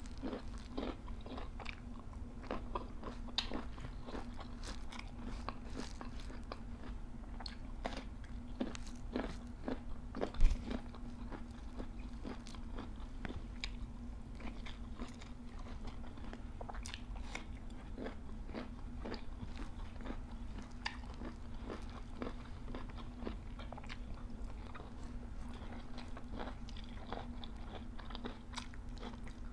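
Two people chewing and crunching food, mostly raw vegetables and rice eaten by hand, with many small clicks and mouth sounds over a steady low hum. A single loud knock about ten seconds in.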